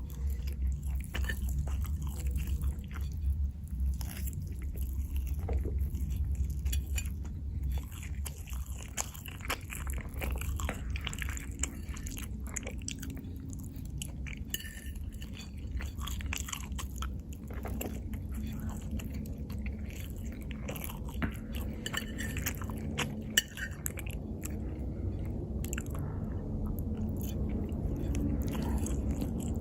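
Close-miked chewing and biting: irregular wet mouth clicks and smacks of someone eating, over a steady low hum.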